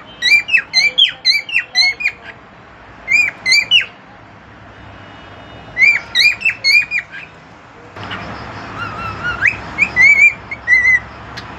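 Cockatiel calling in short, sharp whistled chirps, in quick runs of several at a time with pauses between them.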